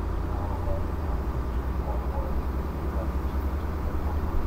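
Distant VIA Rail F40PH-2D diesel locomotive approaching at speed, heard as a steady low rumble.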